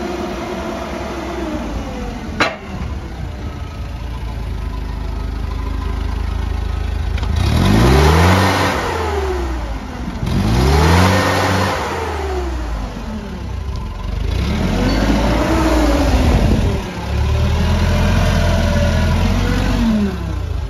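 Mitsubishi FGE15D forklift's engine running steadily, with one sharp click about two and a half seconds in. From about seven seconds in it is revved up and let back down four times, each rev lasting two to three seconds.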